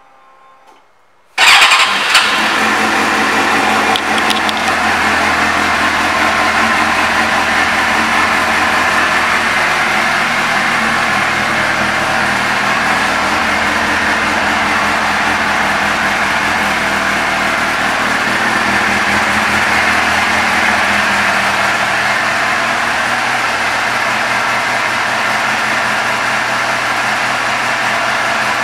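1998 Suzuki GSX-R600's inline-four with an aftermarket Yoshimura exhaust starting about a second and a half in, catching with a loud first burst, then idling steadily.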